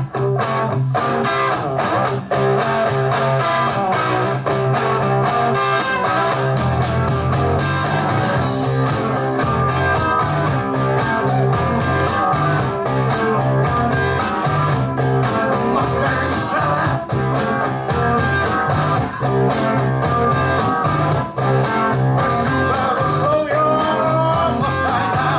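Guitar-led rock-and-roll music played from a vinyl LP on a Dual 1225 turntable, heard through its speakers.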